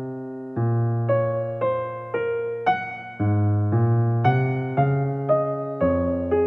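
Background music: a keyboard melody in piano-like notes, a new note or chord struck about every half second and fading before the next.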